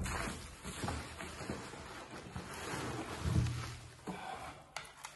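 Plastic wrapping crinkling and cardboard rustling as plastic-wrapped wood pieces are pulled out of a cardboard box, with a couple of light knocks near the end.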